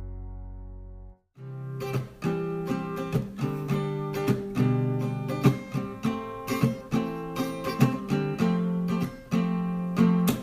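Music: a held chord fades and cuts off just over a second in, then a strummed acoustic guitar starts up in a steady rhythm, the intro to a hymn.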